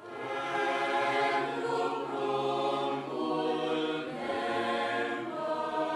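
A choir singing slow, long-held chords, fading in from silence at the start.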